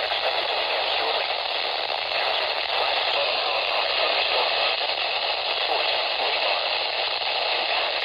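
Steady radio static hiss from a weather radio receiver with no clear station audio, the sound of a weak or noisy signal.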